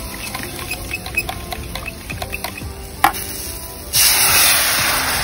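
Light clicks and taps of utensils on a metal cup, then about four seconds in a sudden loud sizzle as coconut milk is poured into the hot curry pot, slowly fading.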